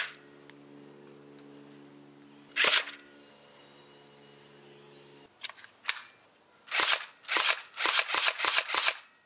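Battery-powered electric blowback airsoft Desert Eagle pistol firing, its motor cycling the slide back with each shot. Two single shots about two and a half seconds apart, then a quick string of about six shots near the end.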